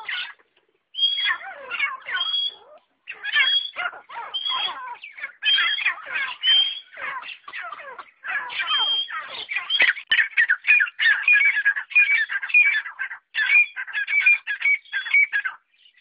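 Caged francolins (teetar) calling over and over: shrill, rapid call notes in runs broken by short pauses, packing closer together from about the middle.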